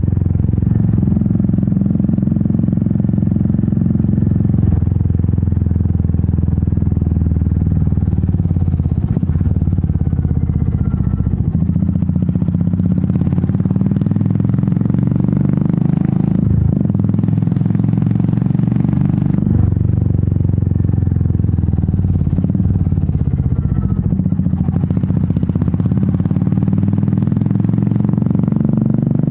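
Royal Enfield Meteor 350's single-cylinder engine and exhaust running steadily under way, a low, even exhaust note heard from the rider's position.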